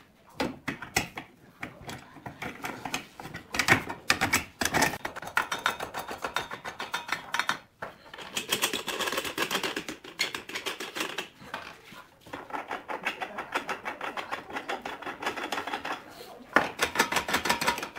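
Quick runs of light taps and clicks from hand tools working on a glued-up wooden panel held in steel clamp bars, in bursts with short pauses, the busiest run near the end.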